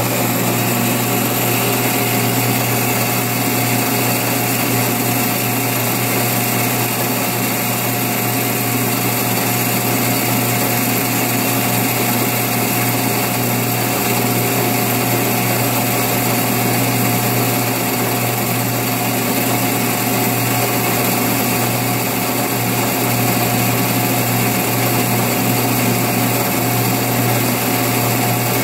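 Metal lathe running steadily with a constant motor hum and whine, its chuck turning an AR-15 buffer while a parting tool cuts off the buffer's flared end.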